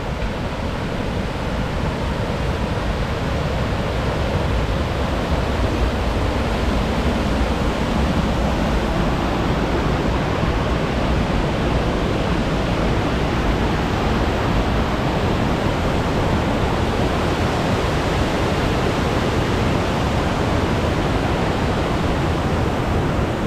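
Mountain stream rushing over boulders: a steady, loud wash of white water that grows a little louder over the first few seconds.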